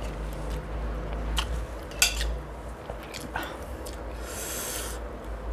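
Cooked green mussel shells clicking as they are picked up by hand: a few sharp clicks, then a short rasping scrape about four seconds in as a shell is worked open.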